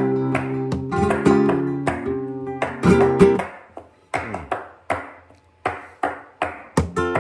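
Flamenco guitar playing in tango rhythm: ringing strummed chords for the first few seconds, then a run of sharp, percussive strokes with short chords.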